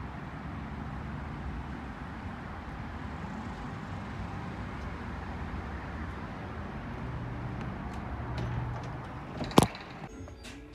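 Steady outdoor road-traffic noise from cars around a parking lot, with a low vehicle hum building in the last few seconds. A single sharp knock about nine and a half seconds in, then faint background music near the end.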